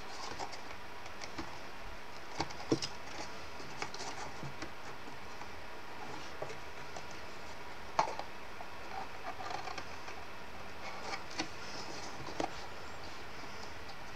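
Scattered light taps and rustles of cardstock being handled as a paper handle strip is pressed and glued onto a card watering can, over a steady background hiss.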